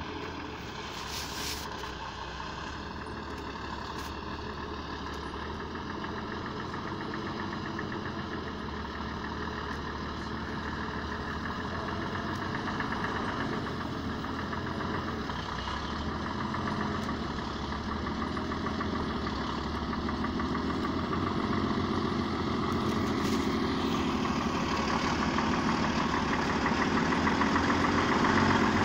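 FAP 1620 log truck's diesel engine running as the loaded truck drives slowly toward the listener, growing steadily louder.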